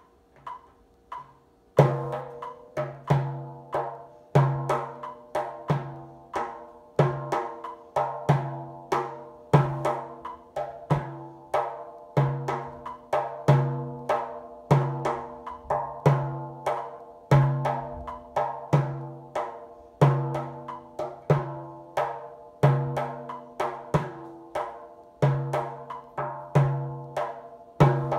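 A hand-played frame drum beats out the maqsum rhythm: deep, ringing dum strokes and sharp, higher tek strokes in a steady repeating cycle. It starts with a few soft taps, and the full pattern comes in about two seconds in.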